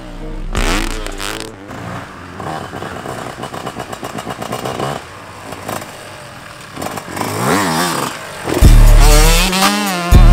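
Motocross dirt bike engines running and revving, their pitch rising and falling. Heavy bass-driven music comes in near the end.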